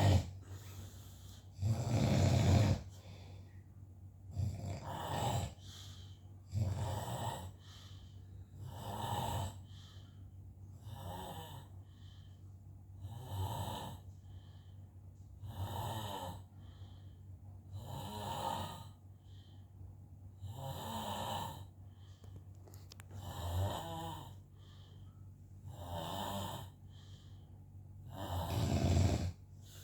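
A sleeping man snoring in a steady rhythm, one snore about every two to three seconds. The loudest snores come near the start and near the end.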